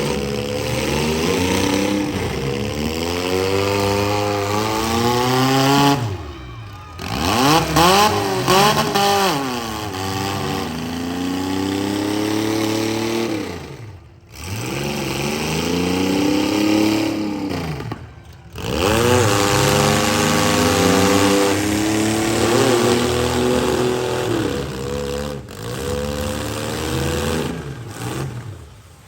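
Compact and midsize demolition derby cars' engines revving, their pitch repeatedly climbing and dropping as the cars accelerate and back off, with several engines running at once. The sound drops away briefly a few times, about six, fourteen and eighteen seconds in.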